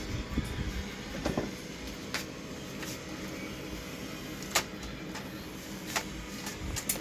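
CD mechanism of a mini component system trying to read a disc: a steady motor whir with a series of sharp mechanical clicks, one of them louder, as the player fails to read the disc.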